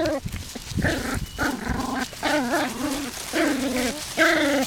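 Six-week-old Welsh Terrier puppies play-fighting, giving a run of short, wavering yaps and growls.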